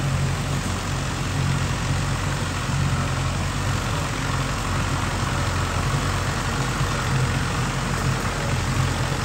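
Zetor 2190 tractor's diesel engine running steadily with a low, even hum while it drives a herbicide sprayer.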